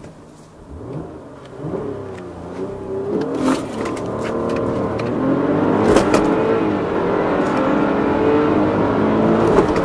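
Car engine accelerating hard from a standstill, heard from inside the cabin. It gets louder as it goes, its pitch climbing and dropping back at each gear change.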